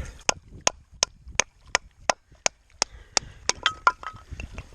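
Chopping a 2x4 board into pieces for firewood: about a dozen quick, sharp blows of a blade into the wood, roughly three a second. A couple of blows near the end ring briefly.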